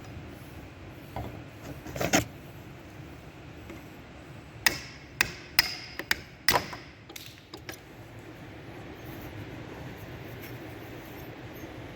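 Hammer strikes during hand work on an old hatchet: one knock about two seconds in, then about six quicker knocks spread over the next three seconds, over a steady low hum.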